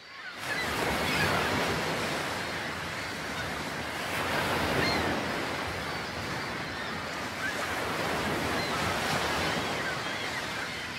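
Steady wash of waves and water with some wind, with a few faint short chirps on top.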